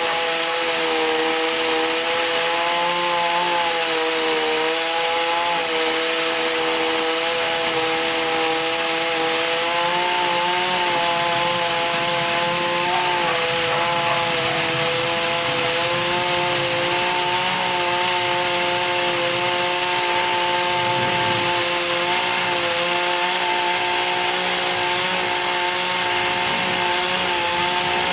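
Two-stroke chainsaw running at high revs while cutting into a tree, a steady engine note that wavers slightly in pitch as the chain works through the wood.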